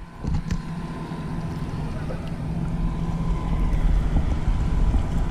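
Steady low hum of a boat motor with wind rumbling on the microphone.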